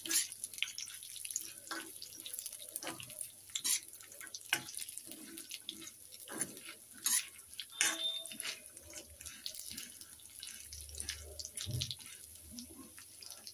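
A metal spatula scraping and clicking against a kadai while stirring dried coconut pieces and chana dal as they roast in a little oil, with irregular clicks and a light sizzle.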